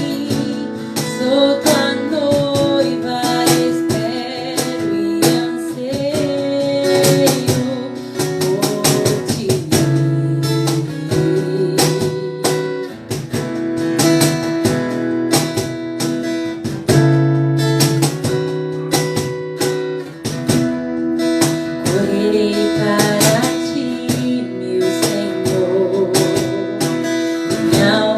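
Acoustic guitar strumming chords in a steady rhythm, an instrumental passage of a slow worship song, with a melody line wavering over it.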